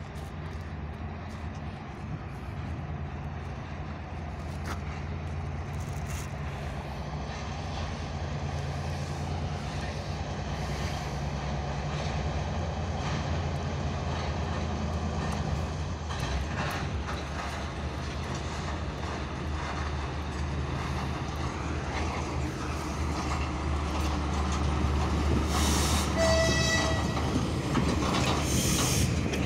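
TGM23V diesel shunting locomotive's engine running steadily as it hauls a rake of hopper wagons, with the rumble and clatter of the wagon wheels on the rails growing louder as the wagons roll close. A short high-pitched squeal comes near the end.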